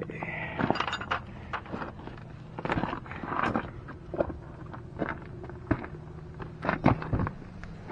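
Scattered clicks, clinks and rustles of tools and parts being handled, with shuffling steps, over a steady low hum.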